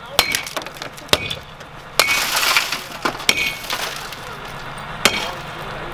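A car being smashed: about five sharp metallic clanks at uneven intervals, with the car's window glass shattering and crunching about two seconds in.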